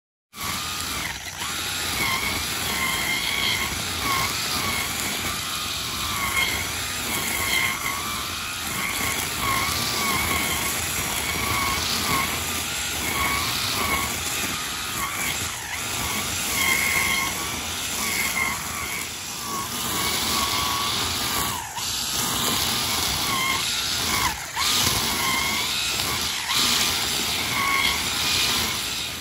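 24V DC electric brush cutter's motor whining at high speed as it cuts grass, its pitch dipping and recovering about once a second as the cutting head bites into the grass and frees up.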